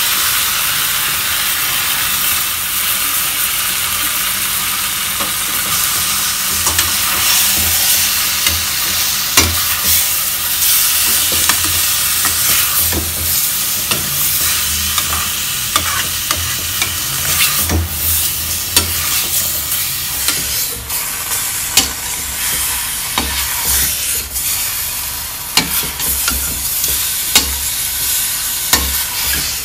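Yogurt-marinated chicken sizzling as it fries in a stainless-steel pan of onions and tomatoes, while a steel spatula stirs it, scraping and clacking against the pan. The sizzle is steady, and sharp spatula knocks come every second or so in the second half.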